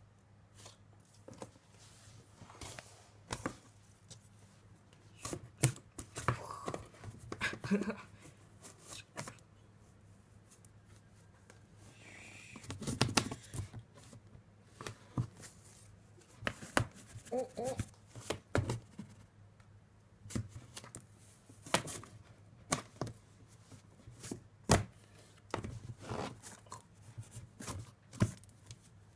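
Scattered, irregular light taps, knocks and scratches on a cardboard box as a cat bats with its paw at a feather toy popping up through holes in the box.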